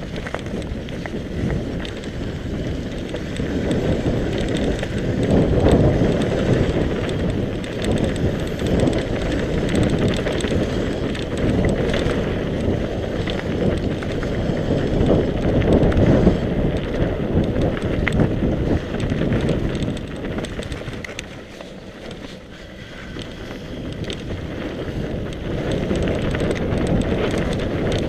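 Wind buffeting the microphone of a camera mounted on a moving mountain bike, mixed with the bike's tyres rolling over a dirt singletrack and small clicks and rattles from the bike. The noise swells and eases in waves, dropping lowest a little past two-thirds of the way through.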